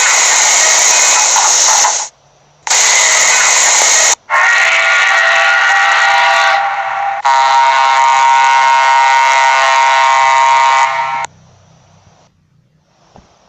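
Steam sound effect: three loud bursts of hissing steam, then a steady pitched steam whistle lasting about four seconds that cuts off suddenly.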